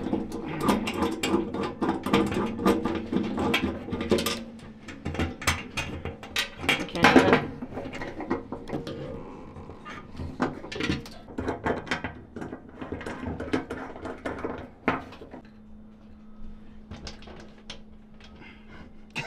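Small metal tools and gas-range burner parts clicking and clinking as the burner orifices are swapped out for propane conversion. The clicks are irregular, with a steady low hum underneath at times.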